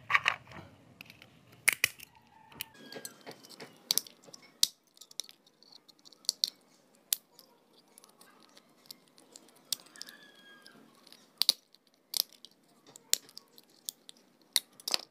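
Small plastic relay case being broken open with pliers: about a dozen irregular sharp cracks and clicks of the plastic snapping and the pliers' jaws biting, over quiet handling noise.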